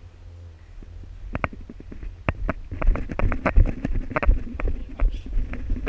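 Irregular clicks and knocks with low thumps, starting about a second and a half in and growing busier toward the end, typical of an airsoft player moving with gear handled close to the microphone.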